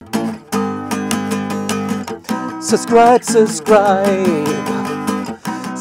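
Acoustic guitar strummed in a steady rhythm, with a man starting to sing over it about three seconds in.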